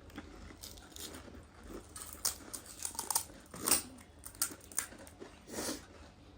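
Crisp golgappa (pani puri) shells crunching as they are bitten and chewed, a string of short irregular crackles, the loudest a little under four seconds in.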